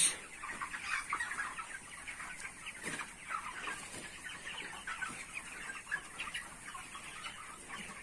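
A large flock of 29-day-old broiler chickens cheeping and clucking, many soft calls overlapping into a continuous chatter.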